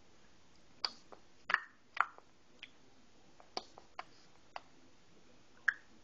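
A baby making funny mouth noises: a string of short, sharp clicks and pops at an irregular pace, about nine in all.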